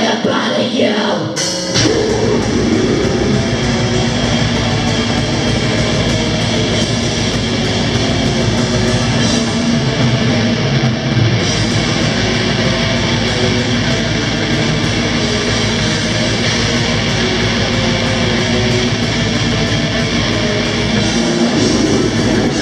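Death metal band playing live at full volume: heavily distorted electric guitars, bass guitar and drum kit crash in about two seconds in, right after a shouted song announcement, and then keep going as one dense, steady wall of sound.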